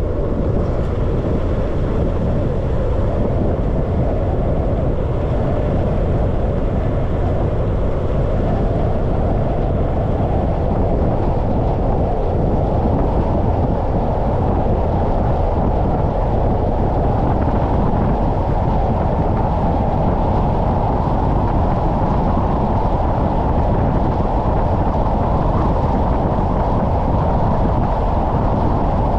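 Wind rushing over a hood-mounted camera on a moving car, mixed with tyre and road noise; a steady, deep rush without breaks.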